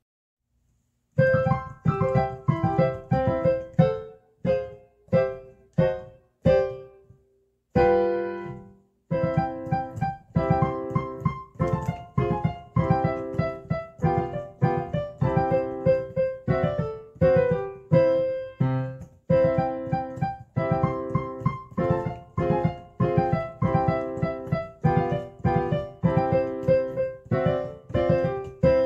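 Background piano music: a light tune of quick struck notes, each fading away, starting about a second in, with a short break partway through.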